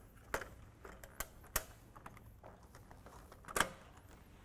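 Snap-on lid of a rack's horizontal cable manager being pressed onto its fingers: several sharp clicks and knocks as it seats, the loudest near the end.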